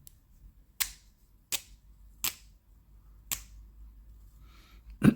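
Four sharp plastic clicks, spaced under a second apart, as the seal on a new chrome paint marker is broken. A throat clearing comes right at the end.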